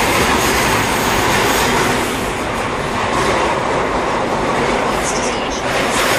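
Toei 6300 series subway train (later batch, Mitsubishi IGBT-VVVF drive) running through a tunnel: a loud, steady rumble of wheels on rail, with a few sharp clacks near the end.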